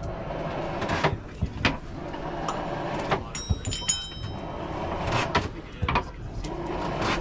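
Blacksmith's hammer striking hot iron on an anvil in irregular blows, with a clear metallic ring from the anvil and iron about halfway through.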